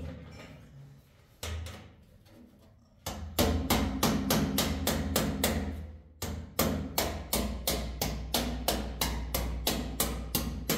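Hammering: a fast, even run of sharp blows, about three to four a second, starting about three seconds in with a short break about halfway through.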